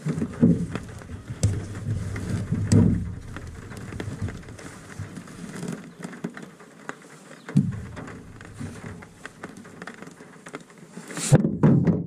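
Low rumble of wind buffeting the microphone, coming and going in gusts, with scattered light ticks and taps. A louder burst of knocking and handling noise comes near the end.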